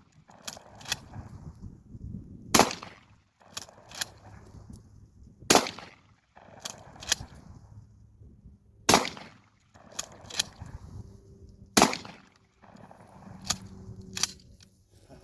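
Shotgun firing birdshot: four shots about three seconds apart, each followed about a second later by a pair of fainter sharp clicks.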